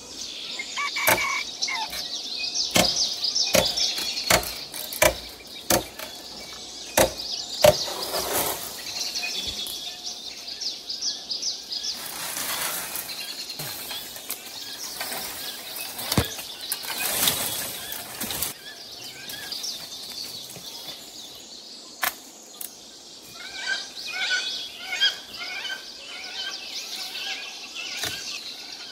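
Birds chirping over a run of sharp knocks and clicks, with two longer hissy swells near the middle.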